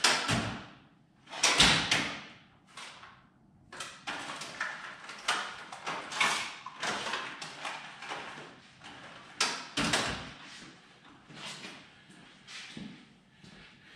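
Metal tool chest drawers sliding open and shut, with tools clattering inside them and a few louder knocks.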